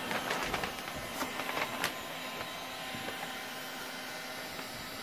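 Handheld electric heat gun running, its fan blowing with a steady whoosh and a faint hum. A few light clicks and knocks from handling in the first two seconds.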